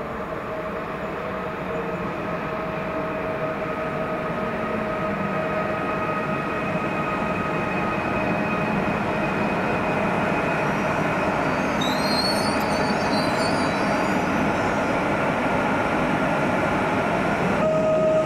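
Pesa Elf electric multiple unit at the platform, its onboard electrical equipment giving a steady hum with a whine of several held tones, growing gradually louder.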